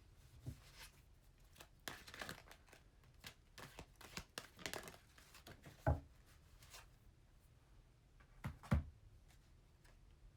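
Oracle cards being shuffled and handled: faint rustling and flicking of card stock, with a soft tap about six seconds in and another near nine seconds.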